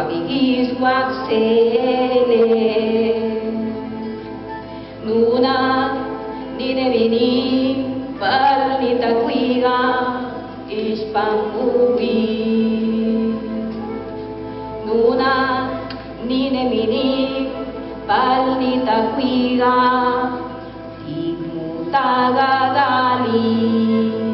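A woman singing a song in Nahuat-Pipil, in phrases a few seconds long, over a steady held low accompaniment.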